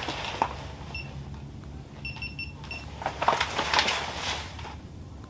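Short electronic beeps from a small device: one about a second in, then four quick ones just after two seconds in. Rustling and handling noise from a person moving in heavy winter clothing, loudest around three to four seconds in, over a low steady hum.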